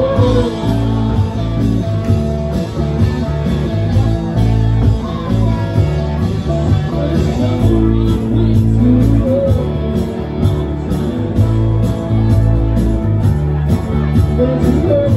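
Live country rock band playing: drum kit keeping a steady beat with cymbal strokes, electric bass and electric guitar, with some singing over them.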